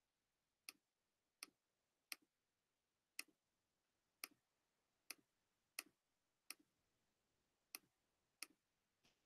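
Faint, sharp single clicks from a computer's pointing device, about eleven at an uneven pace of roughly one a second, as points and lines are placed one by one in a geometry drawing program.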